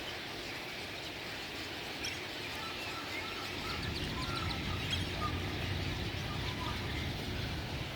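Birds calling: a run of short, repeated chirps in the middle, over outdoor background noise, with a low rumble joining about halfway through.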